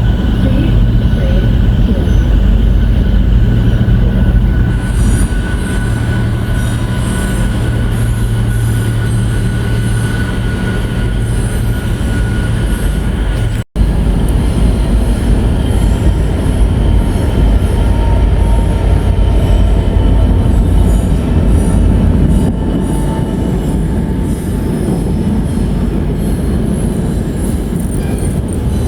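A train running through at close range, wheels squealing on the rails over a steady low rumble and hum. The sound cuts out for an instant about halfway through.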